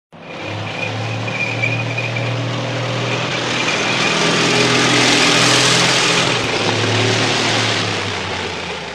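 A motor vehicle's engine running as it passes, its noise swelling to a peak about midway and then fading.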